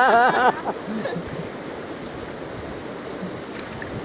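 Shallow river running over a stony bed and rapids: a steady rush of flowing water. At the start, a voice in a fast run of repeated rising-and-falling exclamations breaks off about half a second in.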